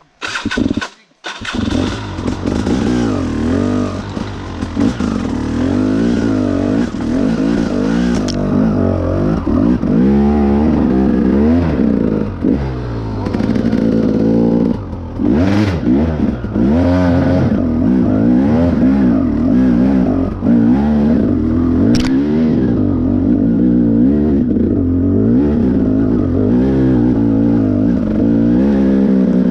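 Two-stroke dirt bike engine revving hard and unevenly, with its pitch rising and falling repeatedly from about a second in, as the rider tries to find traction on a slick, muddy trail climb.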